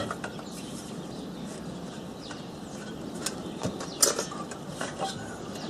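A handful of light clicks and knocks as small metal bracket parts and bolts are handled, starting about three seconds in, over a steady background hiss.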